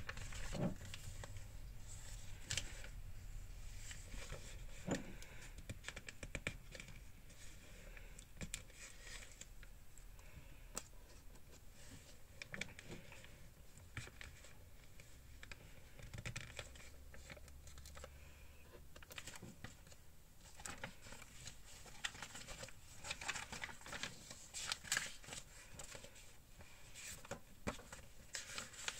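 Paper pages of a journal being turned and smoothed flat by hand: soft, irregular rustles and flicks of paper.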